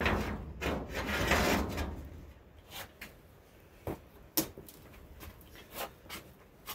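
Scraping and rustling of metal parts and tools being handled and set down for about two seconds, then scattered light clicks and knocks.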